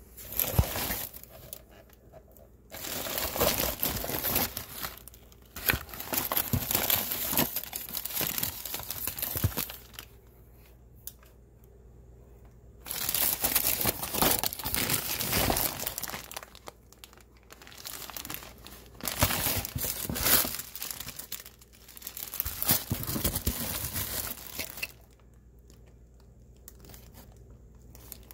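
Plastic bags and packaging of medical supplies crinkling and rustling as they are handled inside a fabric bag. It comes in several bouts of a few seconds each, with short pauses between them.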